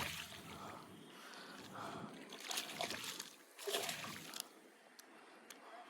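Water sloshing and splashing in irregular surges, with a few sharp clicks near the end.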